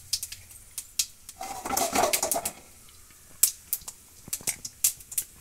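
Mustard seeds and red chilli pieces crackling in hot oil in a nonstick kadai: scattered sharp pops of the seeds spluttering in the tempering. About a second and a half in, a louder noise lasts about a second.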